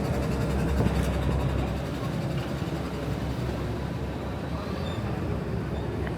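A motor vehicle's engine running with a low rumble over street noise, easing off slightly about two seconds in.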